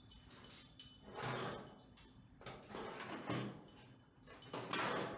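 Sheet steel scraping and rubbing on sheet steel as a 1962 Chevrolet Impala door's inner frame is slid into its new outer door skin, in three short bouts.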